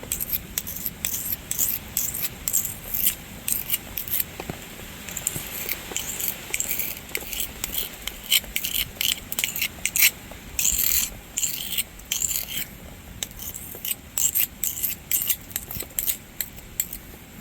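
Blunt knife blade being sharpened on a piece of concrete: a long run of quick, uneven scraping strokes as the blade is drawn back and forth over the rough surface.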